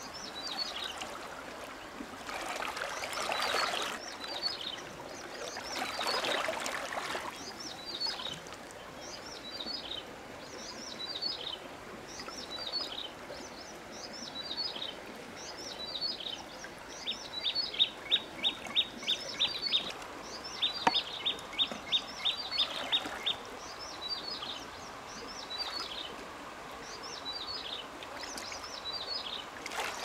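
Birds calling: short high chirps repeat about once a second throughout, and a rapid ticking trill comes twice in the middle. Water swishes and splashes twice in the first seven seconds.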